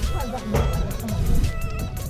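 Music playing, with held notes and a busy percussive pattern.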